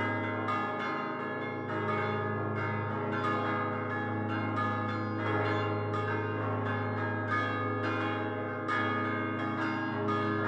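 Full peal of five fixed-hung church bells cast by Prospero Barigozzi in 1928, rung by hand-swinging the clappers against the bells. Rapid, overlapping strikes ring over the steady deep hum of the largest 3.5-ton bell.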